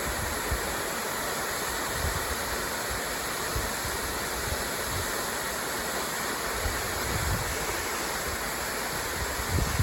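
Waterfall rushing steadily, heard close up near the plunge where its spray carries.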